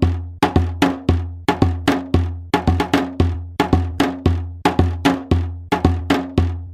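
Dancehall music without vocals: a steady beat of sharp, clap-like percussion hits, about three a second, over a pulsing bass.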